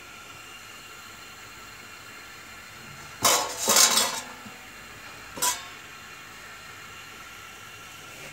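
Wire spider skimmer clinking and scraping against the metal frying pot, a quick cluster of clatter about three seconds in and a single clink about two seconds later, over the steady sizzle of zalabia dough balls deep-frying in oil.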